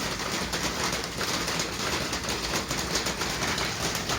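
Light rain and dripping water: a steady hiss with many fine, quick taps of drops.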